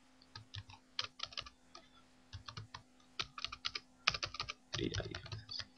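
Typing on a computer keyboard: quick runs of keystrokes with short pauses between them, over a faint steady hum.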